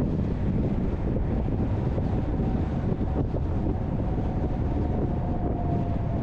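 Steady road and wind noise from a car driving at highway speed, with a faint whine that slides slightly lower in pitch through the middle.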